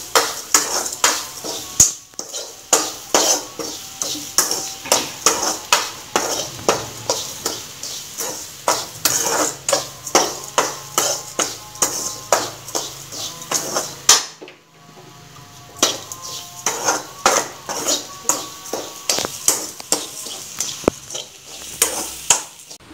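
Metal spoon scraping and knocking against a metal kadai as a dry filling of grated coconut, chopped cashews and sugar is stirred, about two strokes a second, with a brief pause about two-thirds of the way through.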